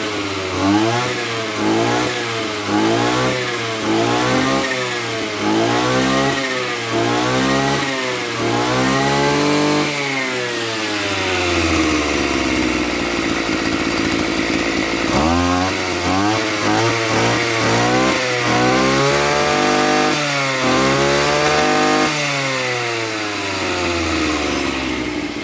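Maruyama MB265 brush cutter's 26 cc two-stroke engine being revved in quick throttle blips, about one a second. Around the middle it winds down and idles for a few seconds, then another run of blips follows before it settles lower near the end.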